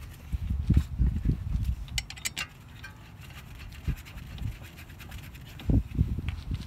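Hands fitting a brake caliper's bolts: scraping and rubbing of gloved hands on the metal caliper and bolts, with a few quick light metallic clicks about two seconds in and low thumps of handling near the start and near the end.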